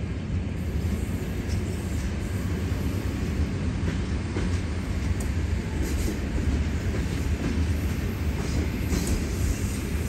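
ED4M electric multiple unit approaching on the station tracks: a steady low rumble of the train running over the rails, with a few faint higher squeaks midway and near the end.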